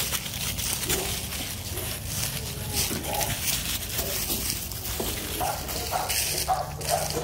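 American Pit Bull Terrier puppy scrambling and pushing a ball through dry leaves, the leaves crunching and rustling under its feet, with a run of short puppy barks starting about five and a half seconds in.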